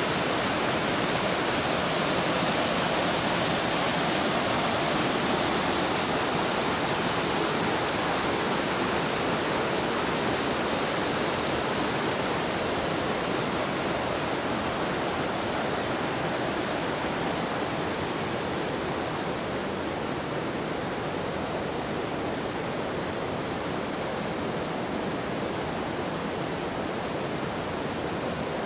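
Mountain creek cascading over boulders: a steady rush of whitewater that grows slightly fainter through the second half.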